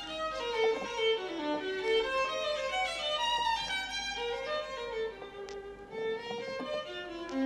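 Violin music playing a flowing melodic line of moving and held notes, with a couple of sharp clicks in the second half.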